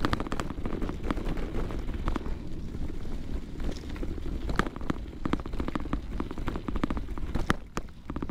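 Low rumble of path noise carried through a microphone's suspension mount while the rig travels over a dirt track, with many irregular sharp clicks of the microphone head tapping against its housing.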